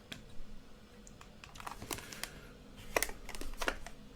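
A series of irregular light clicks and taps of buttons being pressed, about ten in a few seconds, the loudest about three seconds in.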